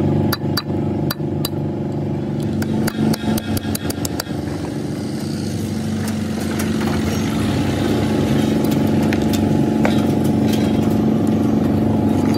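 An engine running steadily. Frequent sharp taps and clinks sound over it in the first few seconds, then fewer, and the engine grows a little louder and rougher from about halfway.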